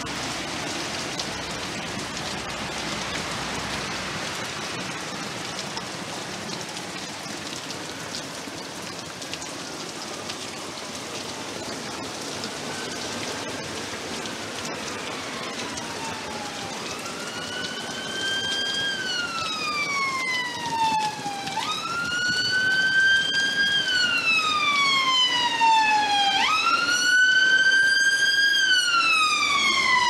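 Heavy rain pouring down steadily. About halfway through, an ambulance siren fades in and grows louder; each wail jumps up sharply and slides slowly down, repeating about every five seconds.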